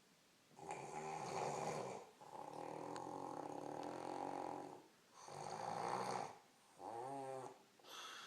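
A woman snoring in her sleep: a string of snores on the in- and out-breaths, starting about half a second in, the longest one near the middle.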